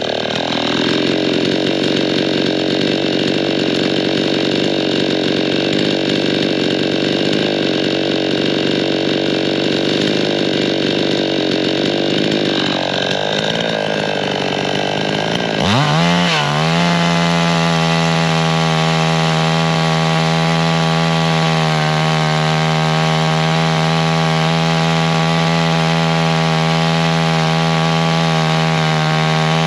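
Gas two-stroke chainsaw running at high revs while cutting through a small tree trunk. About halfway through, the engine pitch dips briefly and climbs back, then holds steady and high.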